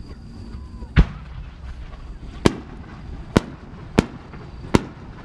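Aerial firework shells going off: five sharp bangs in a few seconds, the first the loudest, over a low background rumble.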